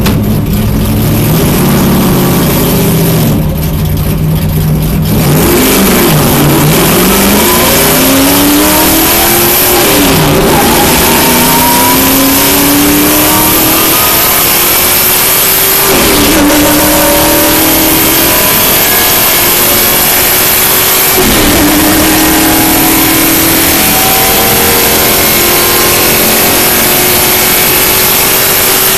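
Stock car V8 engine heard from inside the car, accelerating hard and shifting up through the gears: the pitch climbs and drops back four times, then keeps rising at high revs.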